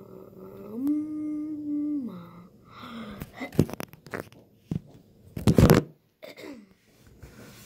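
A girl's voice holds a long sung or hummed note with her mouth open, rising to a higher pitch about a second in and breaking off after about two seconds. Then the phone is handled and set down, with scattered knocks and a loud scraping, rubbing burst about five and a half seconds in.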